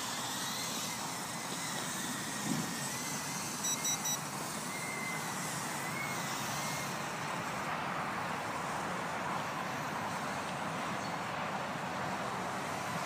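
Wind blowing on the microphone, with the faint high whine of a Furibee H801 mini quadcopter's motors wavering in pitch over the first half. Three quick high beeps come about four seconds in.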